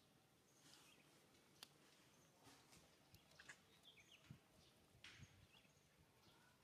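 Near silence: faint outdoor ambience with a few soft clicks and short, high chirps.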